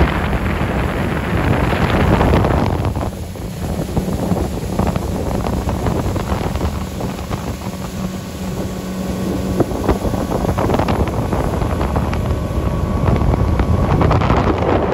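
A boat's outboard motor running under heavy wind buffeting the microphone. Its steady low hum drops away about two-thirds of the way in.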